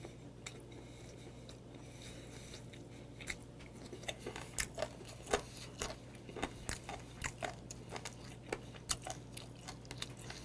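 Close-miked chewing of steamed warty sea squirts (mideodeok) in a spicy pollock-roe sauce: wet crunches and clicks, several a second, quieter for the first few seconds and then coming thick and fast.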